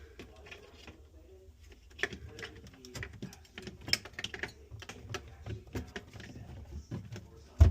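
Irregular clicks and taps of hands working on refrigerator parts, ending in one loud thump.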